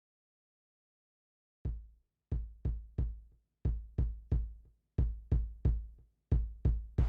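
Silence for about a second and a half, then a bass drum beat starts on its own: deep thumps in a syncopated pattern, three quick hits then a short gap, repeated, the opening of a Latin lounge track.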